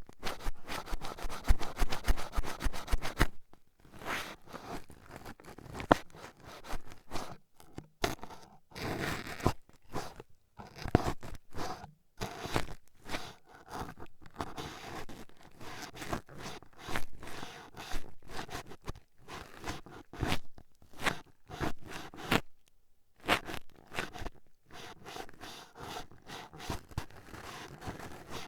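Toothpicks jabbing and scratching right at the microphone for ear-poking ASMR: a fast flurry of scratchy strokes for the first few seconds, then slower, irregular scrapes and taps.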